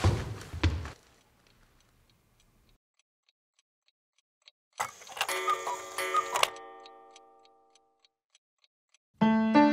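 A clock ticking faintly, about two ticks a second. In the first second there are a few heavy footfalls and knocks. Halfway through comes a short piano phrase whose last notes ring on and fade, and piano music starts just before the end.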